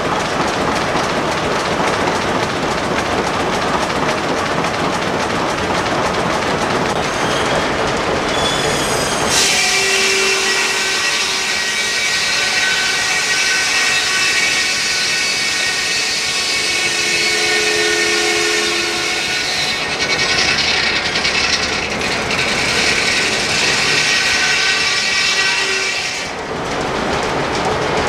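Steam-powered sawmill running, with a steady mechanical clatter from the engine and belt-driven machinery. About ten seconds in, the large circular head saw sets up a high ringing whine made of many steady tones as it cuts through a log. The whine lasts until near the end, when the plain clatter returns.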